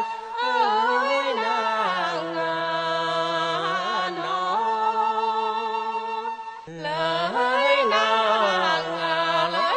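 Tày-Nùng folk singing: one voice drawing out long, wavering vowels with ornamental bends and no words, pausing briefly for breath about seven seconds in before carrying on.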